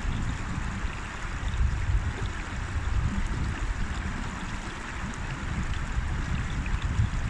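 River water flowing in a steady rushing hiss, with an uneven low rumble underneath that swells and fades every second or so.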